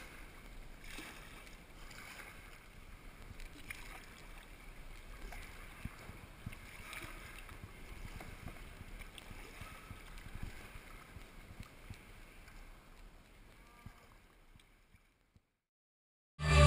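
Kayak paddles dipping and splashing softly in calm water, a faint patter of small splashes and drips. The sound dies out near the end.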